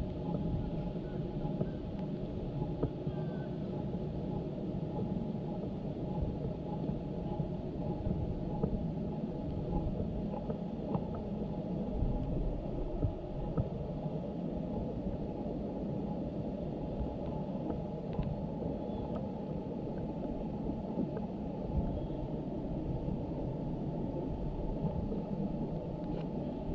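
A steady, muffled low rumbling noise with almost nothing above about 1 kHz and a few faint clicks. It sounds like a faulty audio recording rather than clear sounds from the match.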